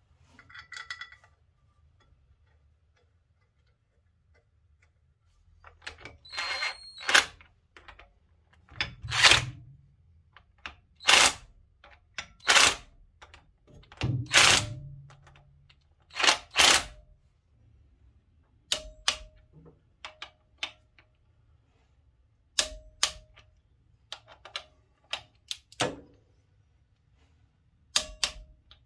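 A cordless impact driver runs in short bursts, about seven of them, spinning in the flywheel bolts. After that come sharp metallic clicks and clinks of a hand wrench and socket on the bolts.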